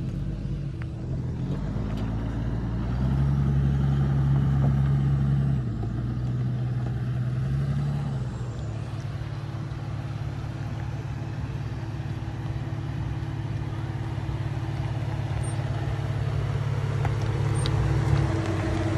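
Toyota Land Cruiser 80 Series engine running as the SUV comes down a steep off-road slope, a steady low rumble that grows louder about three seconds in and eases off a couple of seconds later.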